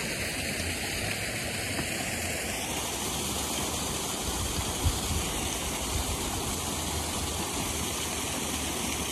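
Steady rushing of an artificial waterfall spilling into a park pond, with one short sharp sound about five seconds in.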